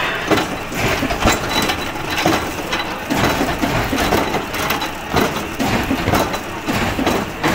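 Irregular knocking and clattering of wood, a few knocks every second, from plywood veneer and sheets being handled and worked, with a faint steady high whine of machinery behind.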